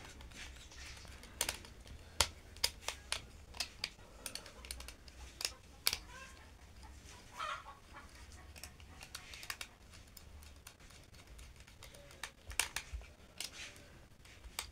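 Irregular sharp clicks and taps of a screwdriver working the screw terminals of a plastic motor contactor while wires are fastened in.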